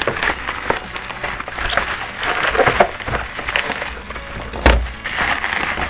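Plastic bubble wrap crinkling and rustling as it is cut open with scissors, with irregular snips and crackles and one louder thump late on.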